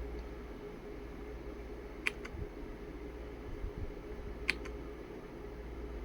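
Two single key presses on a Lemokey X3 mechanical keyboard, about two and a half seconds apart. Each press is a quick double click, the key going down and then coming back up, over a steady low hum.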